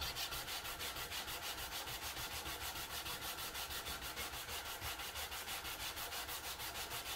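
Sandpaper wrapped on a flat wooden sanding block, rubbed by hand back and forth along the grain of a wooden board. It makes a steady, rhythmic rasping scratch of quick, even strokes, several a second.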